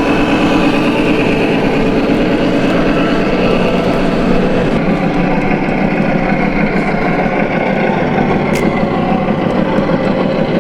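Steady engine idling sound of a radio-controlled model truck, with one short click about eight and a half seconds in.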